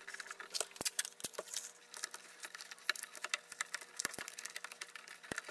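Hands working craft wire through a cardboard cereal box: faint scattered clicks and small taps over a faint steady hum.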